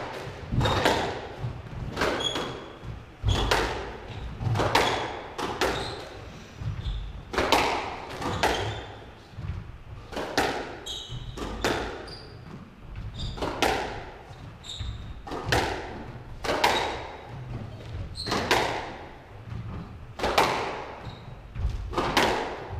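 Squash rally: the ball struck by rackets and cracking off the court walls about once a second, each hit ringing in the hall, with short squeaks of shoes on the wooden floor between hits.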